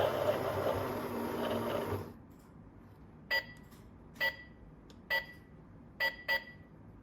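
Small electric motor of a mini toy washing machine running with a slowly falling whine, then stopping about two seconds in. Five short electronic beeps follow, the last two in quick succession.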